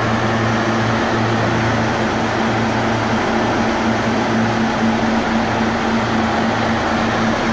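High-expansion foam generators of a hangar fire-suppression system discharging foam from the ceiling: a steady rushing noise with an even low hum underneath.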